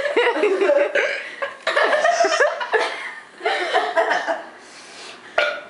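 A group of young girls laughing in several bursts, with bits of chatter between.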